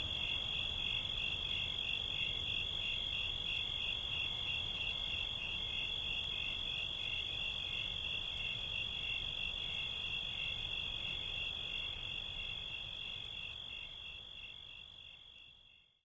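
Crickets chirping: a steady high trill with a regular pulse of about three chirps a second, fading out over the last few seconds.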